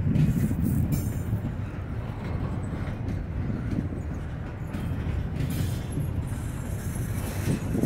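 Norfolk Southern freight train rolling past, a steady rumble of wheels on the rails.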